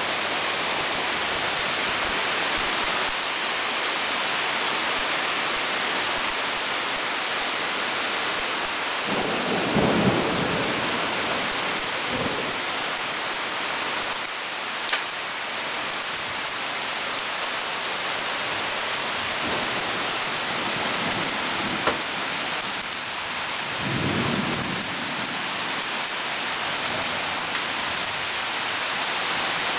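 Heavy rain pouring down steadily on trees and a wooden deck, with thunder rumbling about ten seconds in and again about twenty-four seconds in. A couple of sharp taps stand out briefly.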